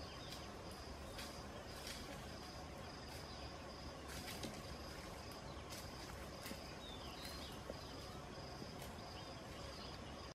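Faint outdoor forest ambience: an insect calling in a steady high-pitched pulse, with a few faint bird chirps and scattered soft clicks.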